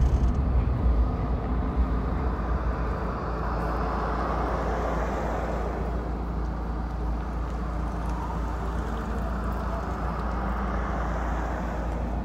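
Wind rushing over an open-top Mazda Miata roadster on the move with its top down, mixed with engine and road noise. It is a little louder in the first couple of seconds, then steady.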